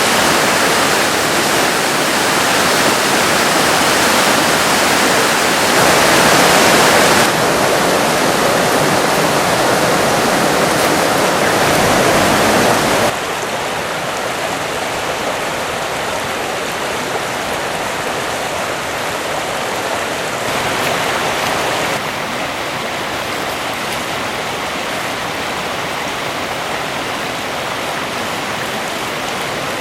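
The Kibune River, a mountain stream, rushing steadily over rocks. Its loudness and tone jump several times, and it is softer and duller from about halfway on.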